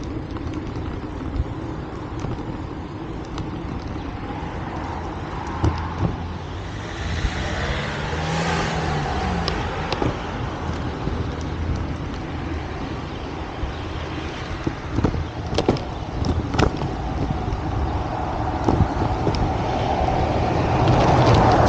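Street traffic: a car passes about seven to ten seconds in and another comes up near the end, over a steady low rumble. A few sharp clicks sound in the middle.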